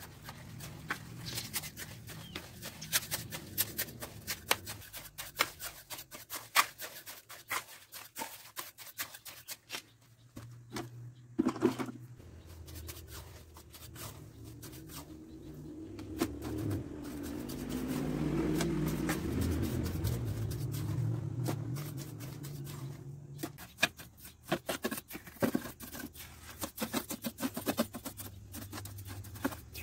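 Steel trowel scraping, stirring and scooping damp cement mortar against the sides of a plastic bucket and into a plastic pot mould, in many short scrapes and taps with one louder knock. In the middle a steadier low sound swells and fades over several seconds.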